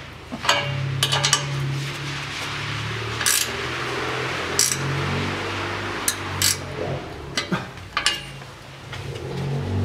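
Metal wrench clinking and clicking against the exhaust flange nuts in short irregular bursts as the muffler joint is tightened onto its new gasket.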